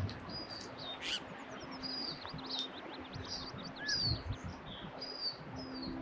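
Birds chirping and whistling: many short, high chirps and whistled notes, some sliding down in pitch, over a steady background hiss.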